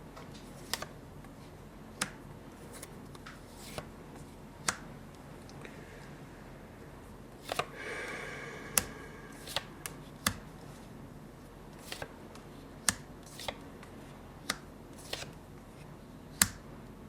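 Tarot cards being handled: scattered sharp snaps and taps as cards are pulled and laid down, with a short rustle of shuffling about eight seconds in.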